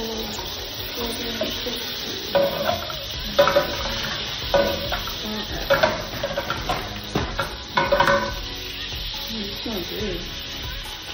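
Food sizzling steadily in a nonstick frying pan while a utensil stirs and scrapes across it, with several short, louder scrapes in the first eight seconds or so.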